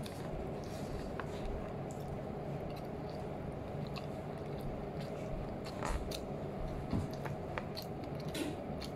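A person eating rice vermicelli with a metal spoon: chewing, with scattered short clicks and scrapes of the spoon in the paper-wrapped food, over a steady room hum.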